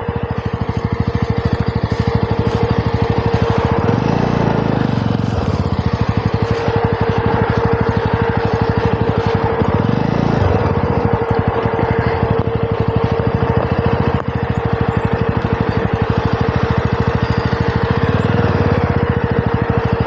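Jawa 42 motorcycle's single-cylinder engine running steadily, with a few brief swells in its low sound.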